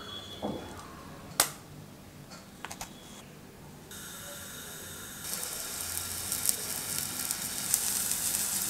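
A few sharp clicks, the loudest about one and a half seconds in, as a steel ladle touches a ceramic plate of rice. About four seconds in, a gas stove burner's flame begins hissing, louder from about five seconds, with crackling as a whole mango's skin chars over the open flame.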